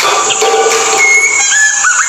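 White-rumped shama (murai batu) singing: clear whistled notes held at steady pitches, one dropping sharply near the end, over a continuous high-pitched hiss.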